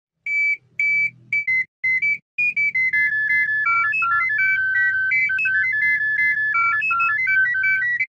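Electronic alarm melody for a fan-made emergency alert: a few separate high beeps, then from about two and a half seconds a continuous ringtone-like tune of clean stepping notes over a low buzzing drone.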